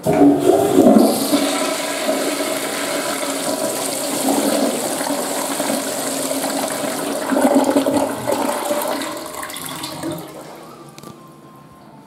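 Western-style toilet flushed with a wall-mounted button: water rushes into the bowl and swirls down the drain. It starts suddenly, runs steadily for about ten seconds and tails off near the end.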